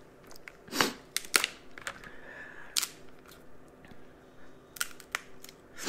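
Crab leg shells cracking as they are broken apart by hand: several sharp cracks and snaps, spaced irregularly.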